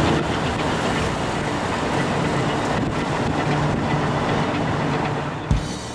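Steady road and engine noise of a moving vehicle, with a low hum. Near the end there is a sharp low thump.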